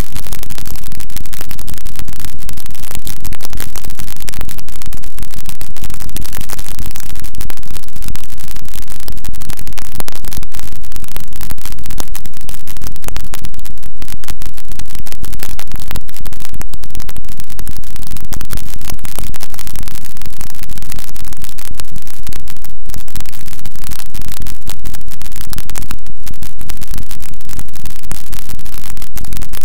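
Harsh noise music: a dense, heavily distorted wall of static, very loud and unbroken apart from a few split-second dips.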